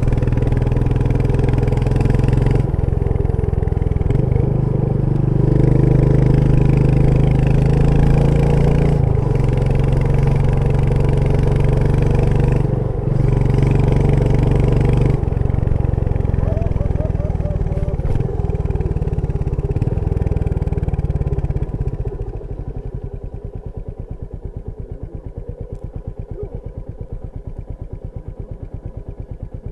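Royal Enfield Meteor 350's single-cylinder engine running under way, its note stepping up and down several times with throttle changes. About two-thirds of the way through it drops back to a quieter, even thumping, like idling.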